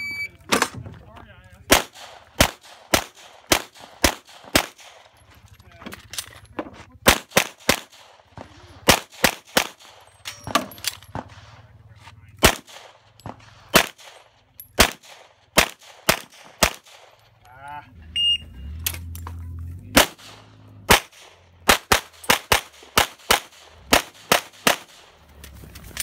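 A shot timer beeps, then a pistol fires rapid strings of shots, many in quick pairs, with short pauses between groups. A second timer beep about 18 seconds in starts another fast string of shots.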